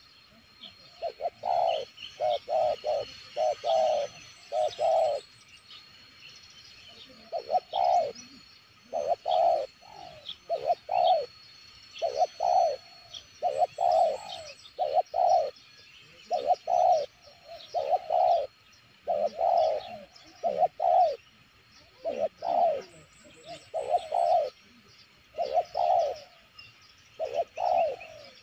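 Spotted dove cooing: short phrases of two or three low notes, repeated every second or two.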